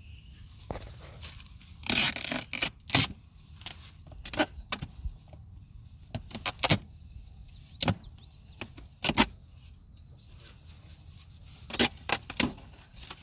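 Wooden beehive frames knocking and scraping against the wooden hive box as they are lifted and set in place: irregular sharp clicks and knocks in small clusters, the loudest about two seconds in, around nine seconds and near the end.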